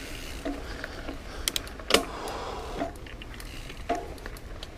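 Mountain bike rattling over a rough, rooty trail: a few sharp clicks and clatters over a steady low rumble of tyres and wind.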